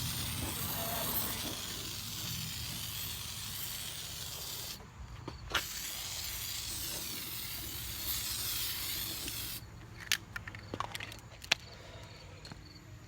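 Rust-Oleum Aircraft Remover paint stripper being sprayed onto a steel wheel rim in two long, steady hissing bursts with a brief break between them. A few sharp clicks follow.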